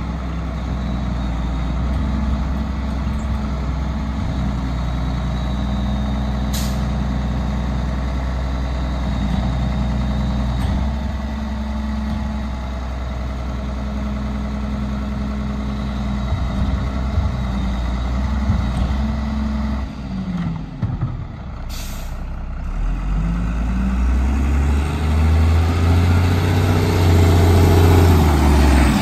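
Mack MR McNeilus rear-loader garbage truck's diesel engine idling steadily, with two short air-brake hisses. Near the end the engine revs up and gets louder as the truck pulls forward toward the camera.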